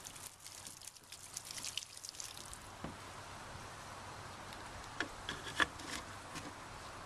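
Water from a garden hose spattering and dripping onto the ground as an RV sewer outlet fitting is rinsed, then a faint steady hiss. Two short knocks about five seconds in as the plastic cap is fitted back on the outlet.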